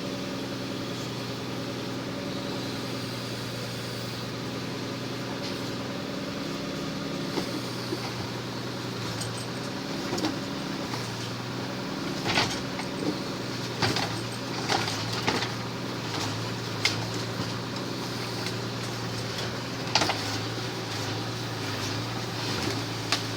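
Engine running steadily at a constant speed, the power source for a Munck forestry crane, with a string of sharp knocks and clanks from about the middle onward, the loudest near the end.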